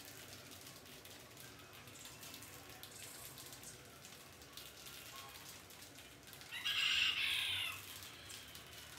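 A loud animal call with several pitched bands, lasting just over a second, about two thirds of the way in, over faint scattered ticks and scratches.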